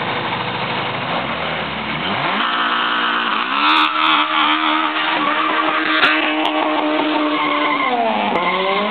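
Car doing a burnout: the engine revs up about two seconds in and is held at high revs over the hiss and squeal of spinning tyres, then drops and revs up again near the end. A few sharp clicks cut through in the middle.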